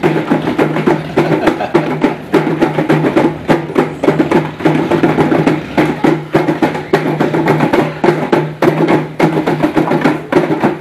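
Several small hand drums, held under the arm, beaten together in a fast, continuous rhythm.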